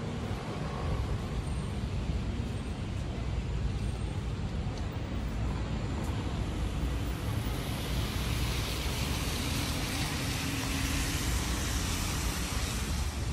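Steady road traffic noise, with the hiss of tyres on wet pavement swelling through the second half as a car passes.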